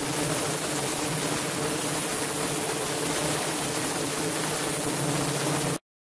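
Ultrasonic cleaning tank running with water circulating through it: a steady low hum under an even hiss of agitated water, cut off abruptly near the end.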